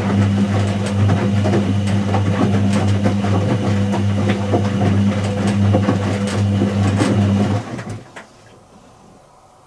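Whirlpool AWG023 top-loading washing machine running with a steady motor hum and light rattling. The motor cuts out about three-quarters of the way through, leaving only a faint hiss.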